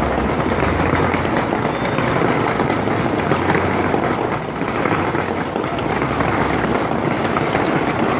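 A dense, continuous barrage of fireworks, a steady loud mass of crackles and bangs with a low rumble underneath and no single report standing out.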